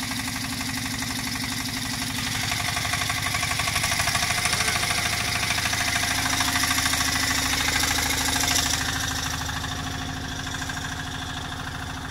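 Fishing boat's engine running steadily with a rapid, even knocking beat, under a hiss that swells about two seconds in and eases off after about nine seconds.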